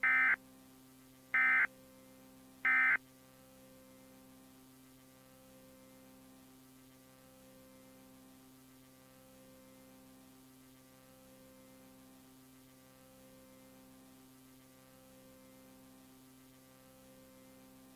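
Emergency Alert System end-of-message data bursts: three short, buzzy digital tones about a second and a half apart that mark the end of the alert. After them only a faint steady hum remains.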